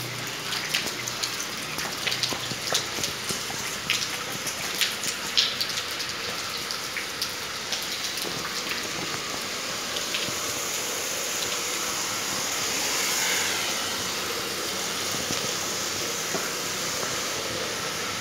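Water rushing through a filter system being backwashed: a steady gushing noise with many sharp splashes or ticks over the first few seconds, swelling briefly about two-thirds of the way through.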